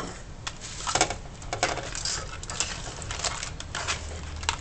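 Spatula scraping and knocking against a wok while crab pieces in thick chilli sauce are stirred: a string of irregular clinks and scrapes.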